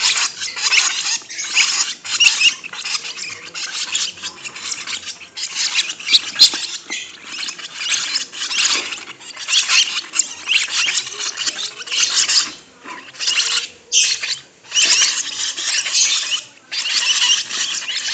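Lovebirds chattering: a dense, high-pitched stream of twittering and squeaking calls, broken by a few brief pauses.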